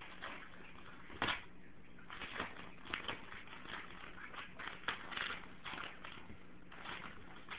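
Paper rustling and crinkling in irregular bursts as a pug puppy chews and tugs at loose sheets of paper, with a few sharper snaps.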